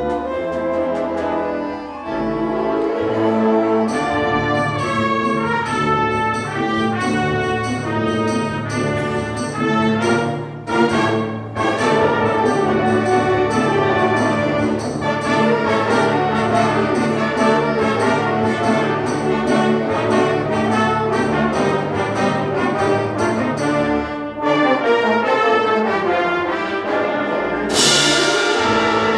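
Full wind band playing, brass to the fore, in quick repeated-note figures. A bright crash comes near the end.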